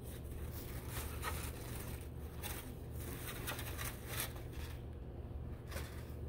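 Paper drape and wrapping crinkling and a plastic catheter-kit tray rustling as they are gathered up, in short irregular rustles, over a steady low hum.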